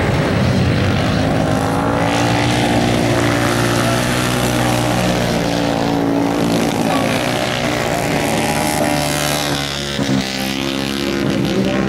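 Ice speedway motorcycles racing, their single-cylinder engines revving up and falling back through the turn, several at once, briefly dropping off about ten seconds in.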